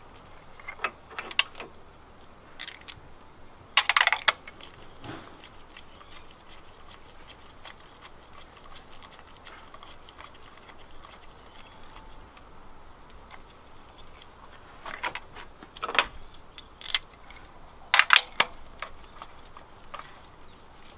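Light metallic clicks and clinks of a spark plug socket and extension inside the plug wells as spark plugs are threaded in by hand, in a few short clusters about 1, 4, 15 and 18 seconds in.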